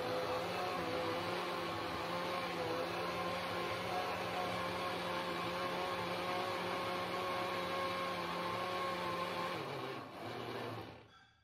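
Countertop electric blender running steadily, puréeing tomatoes, fresh pepper, onions and crayfish, with a steady whir. Near the end it is switched off and the motor winds down to a stop.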